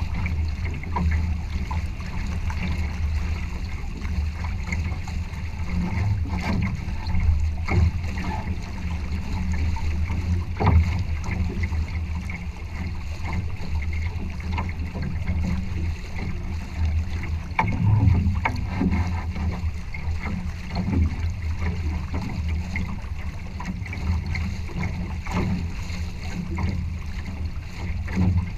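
Water rushing and slapping along the hull of a Challenger trimaran under sail, over a steady low rumble of wind and water on the camera housing. Short louder splashes break through now and then, the biggest about 11 and 18 seconds in.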